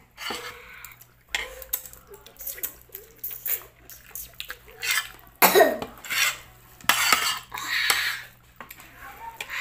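Close-up eating sounds from a hand-eating mukbang: chewing, lip smacks and wet mouth clicks as rice and meat are eaten by hand and the fingers are sucked, with a brief falling hum from the eater about halfway through.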